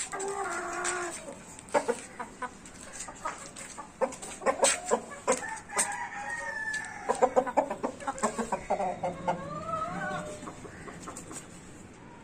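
Caged gamefowl roosters clucking, with quick sharp clucks in the middle and a drawn-out crow that rises and falls near the end.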